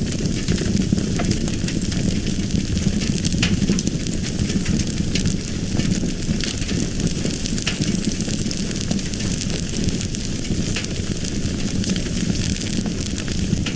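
Fire burning: a steady low rumble of flames with scattered sharp crackles and pops throughout.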